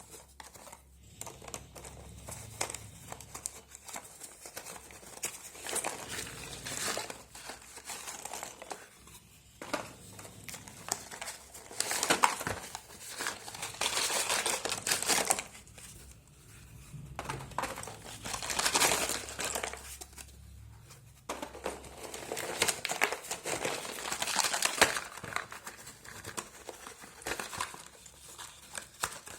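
Packaging of a box of slate pencils crinkling and tearing as it is unwrapped by hand, a dense crackling that swells louder in several waves.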